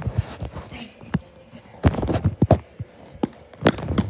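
Handling noise of a phone being carried and moved by hand: a run of irregular knocks and thuds with rubbing against the microphone.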